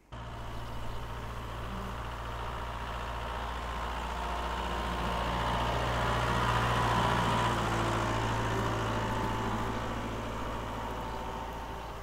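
John Deere tractor running with its hay mower working, a steady engine drone that grows louder toward the middle and eases off slightly near the end.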